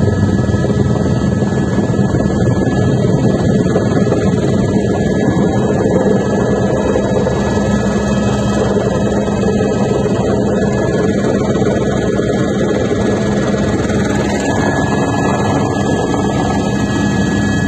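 Helicopter in flight: a steady, loud engine and rotor noise with a constant high whine running over it.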